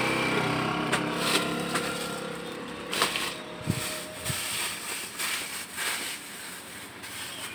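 A small engine's drone fades away in the first second. Then outdoor background noise with scattered light clicks and a couple of brief low knocks.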